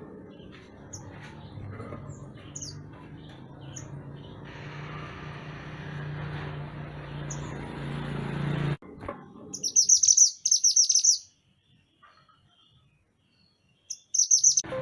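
Songbird known in Indonesia as mantenan gunung singing. Scattered short high chirps come over a low background rumble, which cuts off abruptly after about nine seconds. Then a loud run of rapid, high chirping trills, a brief quiet, and another short burst near the end.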